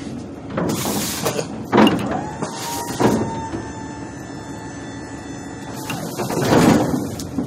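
Cardboard furniture boxes scraping and knocking as they are slid across a pickup truck bed, several times, loudest about two seconds in and again near the end. A steady whine sounds for a few seconds in the middle.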